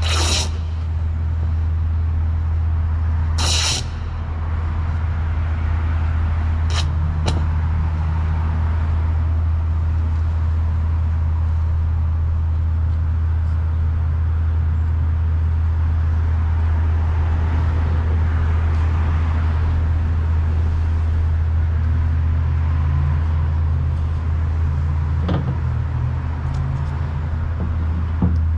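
A constant low hum under steady street noise, with a few short sharp clicks.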